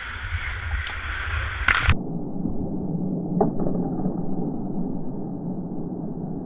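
Ice hockey play heard from a player's camera: skates on the ice, stick clicks and wind on the microphone. About two seconds in the sound turns muffled and dull, and there is a single sharp knock about three and a half seconds in.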